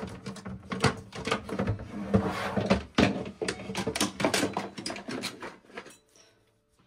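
Irregular knocking, clicking and clattering of small kitchen appliances and their cords being handled and shifted about in a cupboard; it stops about six seconds in.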